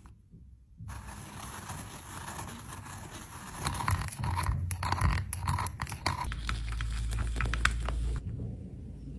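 A thin metal rod stirring in a small glass beaker of hot, melted amber liquid, scraping and clicking against the glass over a steady hiss. The clicks come thickest in the middle of the stretch.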